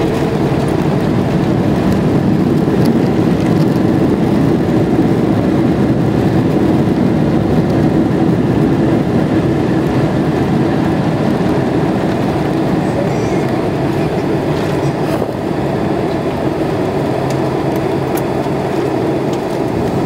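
Steady rumble and engine noise heard inside a jet airliner's cabin as it rolls down the runway after landing, easing a little in level about three-quarters of the way through.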